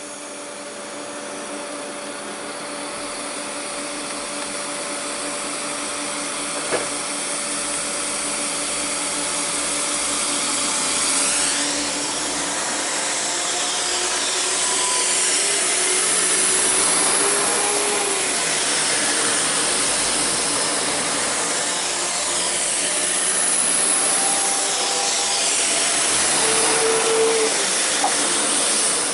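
Two coupled Class 172 Turbostar diesel multiple units accelerating away, their underfloor diesel engines working hard and growing louder. The engine note rises and drops back a couple of times as the train gathers speed.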